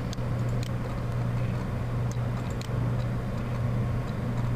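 Steady low electrical hum over background hiss from the recording setup, with a few faint clicks.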